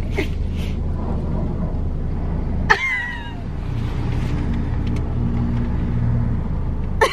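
Car running, a steady low rumble heard from inside the cabin. About three seconds in comes a single sharp click with a short falling squeak.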